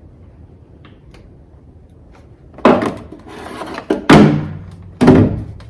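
Three heavy clunks from the Humvee's Cummins diesel starter as it engages. Each dies away within about half a second without the engine turning over, which the owner fears means the engine is seized.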